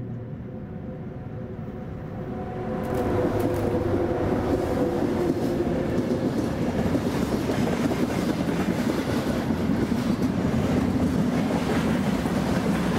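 Subway train pulling out of a station. A low hum with a few steady tones comes first, then from about three seconds in a louder, steady rumble and clatter of wheels on track.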